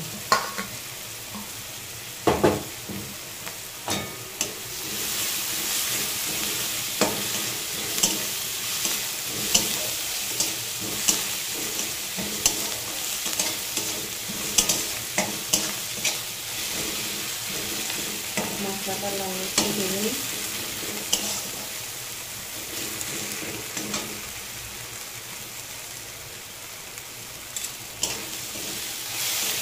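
Chopped onions, garlic and ginger sizzling in hot oil in a metal kadai, stirred with a metal spatula that scrapes and knocks against the pan. The spatula knocks come roughly once a second over the steady sizzle, which grows louder about five seconds in.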